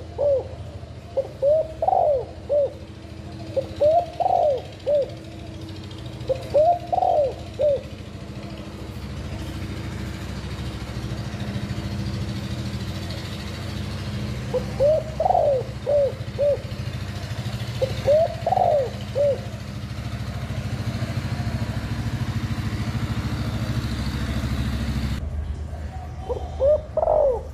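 Spotted dove cooing in phrases of several rising-and-falling notes, about six phrases with long pauses between some, over a steady low hum.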